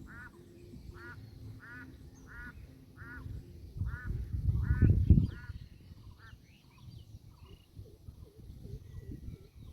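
A bird honking over and over, about one and a half calls a second, fading out about two-thirds of the way through. A low rumble swells around the middle.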